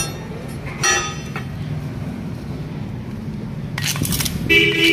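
Steel strips being handled and set down on metal. There is a ringing clang about a second in, a short rattle near the end, and then another clang that rings on.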